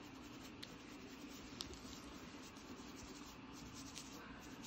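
Fine-tooth comb scratching through thick hair against a flaky, dandruff-covered scalp: a faint, steady scratching with a couple of small ticks.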